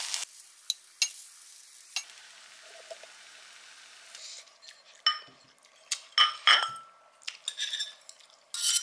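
Tableware clinking: a few sharp clicks in the first two seconds, then from about halfway a run of short, ringing clinks of a metal spoon against ceramic bowls and dishes.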